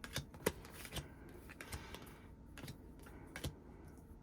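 Photocards being handled and sorted, giving light, irregular clicks and taps as the cards are picked up and laid down.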